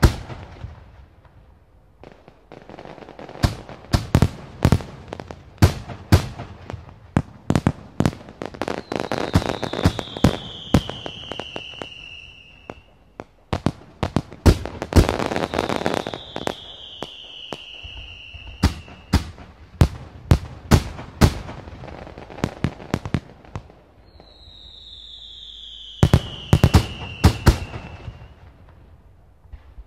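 Fireworks going off: a fast, uneven run of sharp bangs and crackles, with three long falling whistles.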